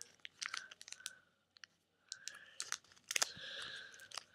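Hands handling plastic card holders and packaging: a scatter of small, irregular clicks and taps, with a soft rustle about three seconds in.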